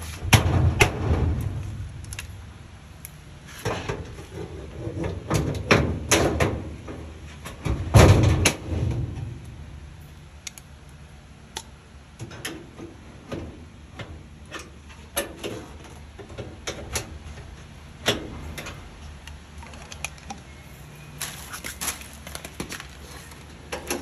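A metal filing-cabinet drawer and its slide rails being fitted and worked by hand, with a screwdriver. There are irregular clicks and knocks of metal throughout, and a few heavier thuds in the first nine seconds or so.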